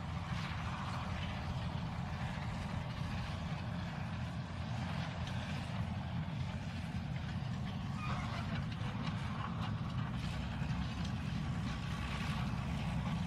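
Model railroad diesel locomotive and ore cars running past on the layout track, a steady low rumble.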